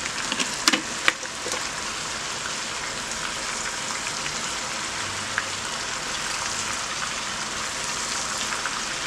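Chicken pieces sizzling steadily in hot vegetable oil in a pot, with a few sharp clicks in the first second or so.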